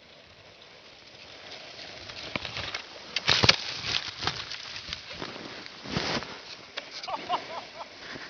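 Skis scraping over snow, getting louder, then a skier crashing: a burst of thuds and scrapes about three and a half seconds in, and another around six seconds as he tumbles and slides in the snow.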